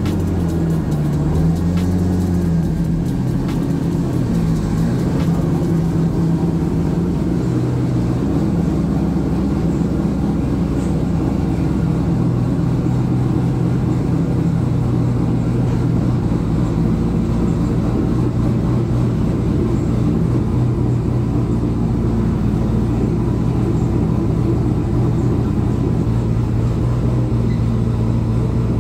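Twin-turbocharged Corvette Z06 LS7 V8 running steadily. Its pitch shifts up and down in the first few seconds, then holds steady.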